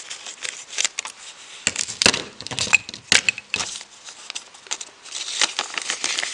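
Plastic parts packet holding replacement alternator brushes being opened and handled, crinkling and crackling, with a few sharper clicks about two to three and a half seconds in.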